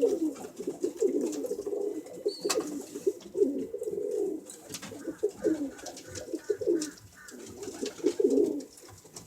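Several domestic pigeons cooing over one another without a break, with a few sharp clicks scattered through.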